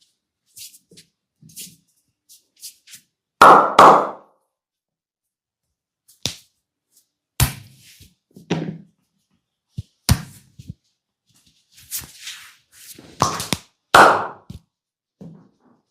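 Hand slaps and claps of a percussive head massage: irregular sharp smacks of palms on the head, the loudest about three seconds in and again near the end, with lighter taps between.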